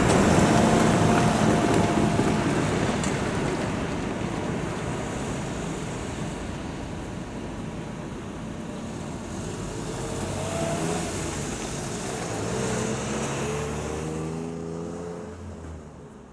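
A passing train's rumble dying away, then a vehicle's engine rising in pitch as it speeds up and fades out near the end.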